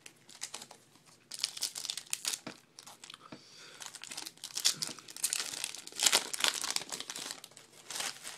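Trading-card pack wrapper being torn open and crinkled by hand, in irregular crackling bursts.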